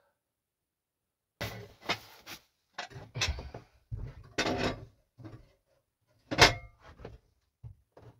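Scraping and knocking as a heavy wood stove, about 70 kg, is shifted into place on the floor. The sounds come in a string of irregular scrapes and thumps starting about a second and a half in, with one sharp knock, the loudest, about six and a half seconds in.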